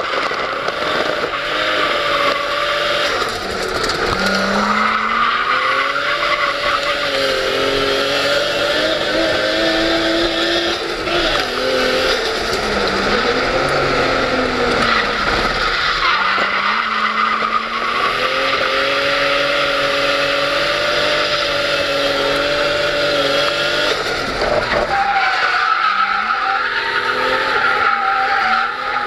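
Drift car heard from inside the cabin, its engine revs rising and falling again and again through the corners while the tyres squeal and skid continuously.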